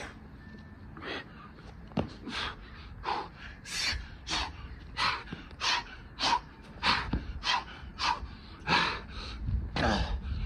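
A man panting hard from the exertion of burpees, with quick loud gasping breaths coming about twice a second. A sharp knock sounds about two seconds in.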